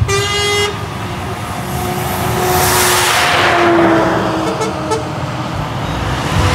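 A short truck horn toot at the very start, then a Volvo FH truck's engine and tyres passing close by, swelling to a peak about three seconds in and fading with a falling pitch.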